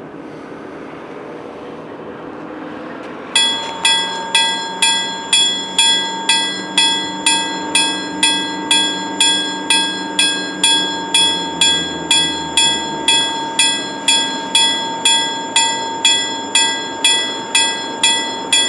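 Level-crossing warning bell starts ringing about three seconds in, struck about twice a second, the signal that a train is approaching. A low engine drone runs beneath it.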